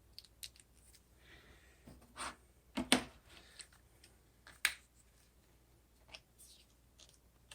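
Scattered light clicks and taps of a small plastic USB SD card reader being handled, with a brief faint rustle; the two sharpest clicks come about three and four and a half seconds in.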